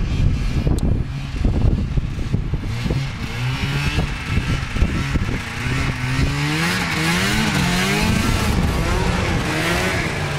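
Ski-Doo Mach 1 snowmobile's Rotax 521 two-stroke twin running under way, its pitch rising and falling with the throttle and growing louder in the second half as the sled comes close. Wind rumbles on the microphone over the first few seconds.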